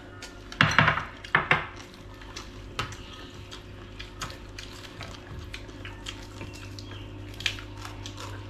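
Chopsticks, spoons and small ceramic bowls clinking and tapping during a meal, a few louder sounds about a second in, then many light clicks over a steady low hum.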